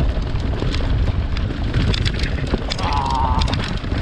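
Wind buffeting a handlebar-mounted GoPro's microphone while mountain bike tyres crunch over a loose gravel track at speed, with many short rattles and clicks from stones and the bike. A brief wavering squeal comes about three seconds in.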